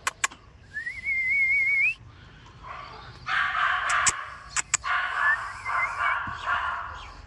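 Cane Corso puppies whimpering: one high, wavering whine that rises slightly, about a second in. Later come bursts of hissy noise and a few sharp clicks.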